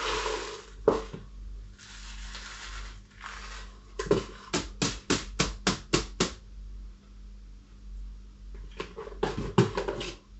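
Handling of a plastic pot and a plastic bottle filled with clay granules: a few rustles, then a quick run of about nine sharp clicking taps, about four a second, and a few more clicks near the end.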